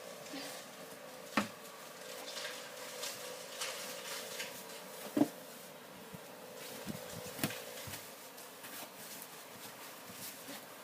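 Snow being brushed and scraped off a car: irregular short scraping strokes, with a few sharp knocks about a second in, around five seconds in and again about two seconds later.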